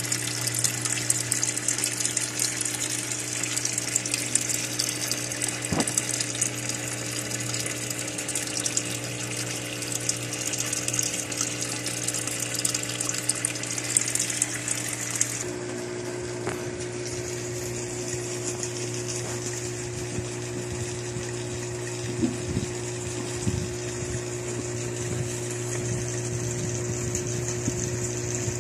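Aquarium sponge filter bubbling steadily, with the constant low hum of its electric air pump underneath. About halfway through, the bubbling hiss quietens and the hum changes tone.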